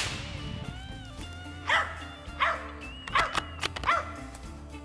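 Hunting dog barking at a treed squirrel, about five sharp barks in the second half, over steady background music. It opens on the fading echo of a rifle shot.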